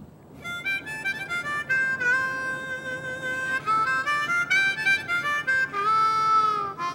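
Soundtrack music: a harmonica playing a slow melody of held notes with a slight bend, beginning a moment in.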